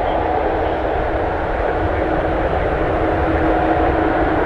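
Boeing 777-300ER's GE90 jet engines running: a steady rush and low rumble with a constant two-note whine.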